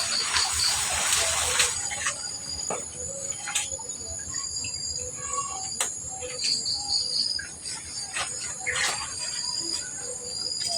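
Steady high-pitched insect chirring, with scattered clicks and knocks over it.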